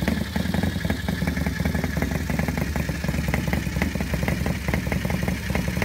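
Coventry Eagle Flying 8 motorcycle's JAP V-twin engine running steadily on its stand without revving, a fast, even beat of firing pulses.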